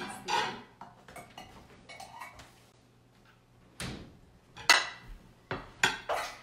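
Kitchen clatter: a series of knocks and clinks as things are picked up and set down on a counter, the loudest sharp knocks near the end.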